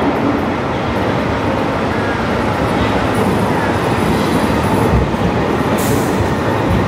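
London Underground Piccadilly line train running into the station platform: a loud, steady rush and rumble of the train, with a short hiss near the end.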